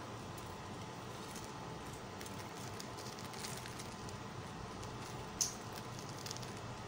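Faint crackling of crisp-fried bread samosas being handled and rearranged on a plate, with one sharper click about five and a half seconds in, over a steady low hiss.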